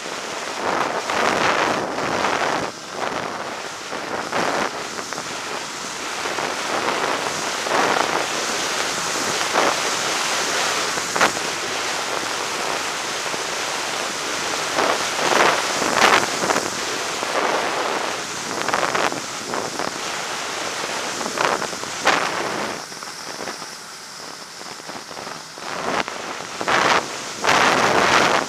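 Steady rushing wind noise on the microphone of a camera on a moving Ski-Doo snowmobile, mixed with the machine's running noise. It swells and gusts throughout, and drops quieter for a few seconds about three-quarters of the way through.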